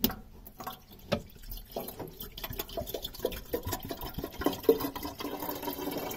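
Glycol coolant mix pouring from a plastic bottle into the plastic expansion tank of an Alde boat central-heating system, trickling and gurgling irregularly as the circuit is topped up towards the max mark.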